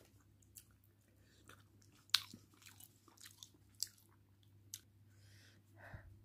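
Faint wet clicks and squelches of rice and curry gravy being mixed by hand and eaten, with one sharper click about two seconds in.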